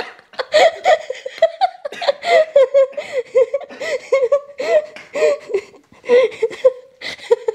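A woman laughing in a long fit of short pulses, about four a second, with breathy catches between them; it breaks off briefly a couple of times near the end.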